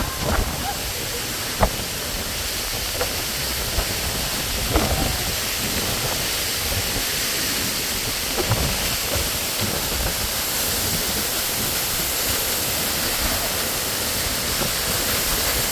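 Waterfall pouring down close by, heavy spray making a steady rushing hiss, with a few short louder knocks in the first few seconds.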